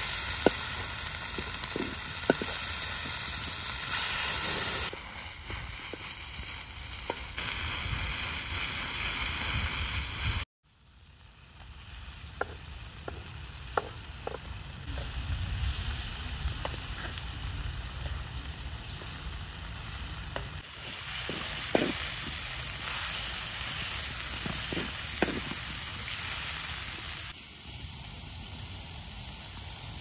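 Diced chicken breast sizzling as it fries in a wok over a wood fire, with the wooden spatula's occasional light taps and scrapes against the pan as it is stirred. The sound breaks off briefly about a third of the way in, then the sizzling resumes.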